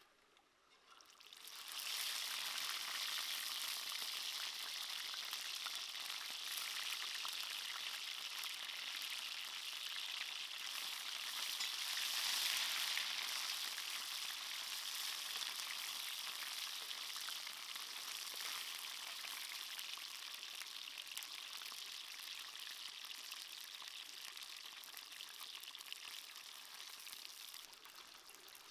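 Whole fish frying in hot oil in a clay pan: a steady sizzle that starts about a second and a half in, is loudest around the middle and slowly eases off.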